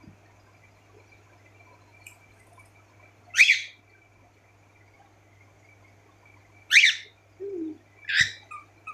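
Cockatiel giving three short, sharp calls a few seconds apart over a faint steady hum. The owner puts the calling down to the bird seeing its own reflection.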